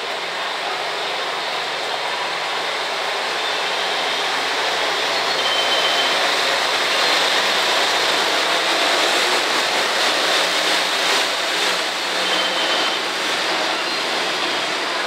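KiHa 120 diesel railcar running in a covered station, a dense even rumble that swells about halfway through and eases near the end as the train pulls out of the platform.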